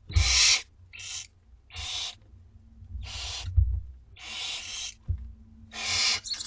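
Barn owl nestlings hissing, about six short raspy hisses in a row: their begging calls at feeding time. A few faint low thumps come in between.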